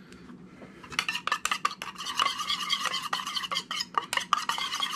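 Metal spoon stirring an oil-and-vinegar dressing in a small stainless steel bowl: rapid clinking and scraping of spoon against metal, starting about a second in.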